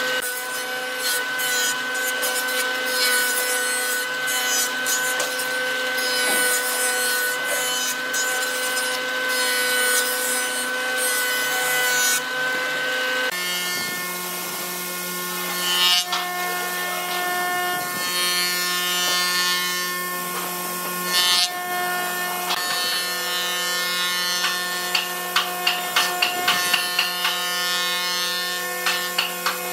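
Jointer running, its spinning cutterhead planing the edge of a wooden slab fed by hand along the fence: a steady motor whine with the hiss of cutting. The whine changes pitch abruptly about halfway through, and near the end there is a quick run of sharp ticks, about five a second.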